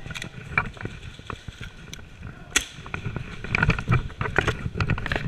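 Airsoft gunfire and gear handling: scattered sharp clicks and snaps, with one sharp crack about two and a half seconds in and a faster run of clicks in the last second and a half.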